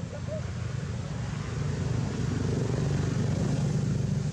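Low, steady engine hum of a motor vehicle, growing louder about a second and a half in.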